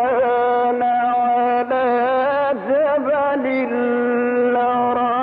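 Male Quran reciter chanting in the melodic mujawwad style, holding long notes at a steady pitch with short ornamented turns between them.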